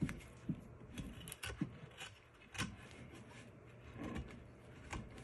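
Carving knife cutting into a very hard wooden stick: faint scraping with a handful of short, sharp clicks as slivers of wood break away.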